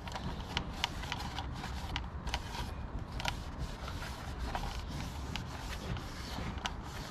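The outer cap of an excavator's air-filter housing being wiped down with a rag and handled: scattered small clicks and light rubbing over a steady low rumble.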